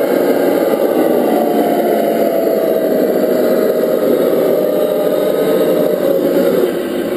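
A scale RC Land Rover Defender D90 model's drive running steadily as it tows a motorcycle trailer, a continuous whirring with a tone that slowly falls in pitch in the middle.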